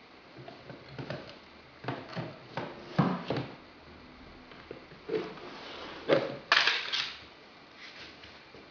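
A Greater Swiss Mountain Dog chewing a rawhide bone: irregular crunching and gnawing, the loudest bites about three seconds and six seconds in.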